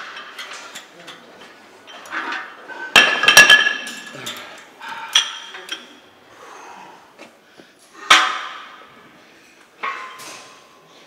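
Metal clanks of a loaded barbell and its iron weight plates being handled in a rack: several separate strikes, the loudest about three seconds in, ringing briefly after the hit.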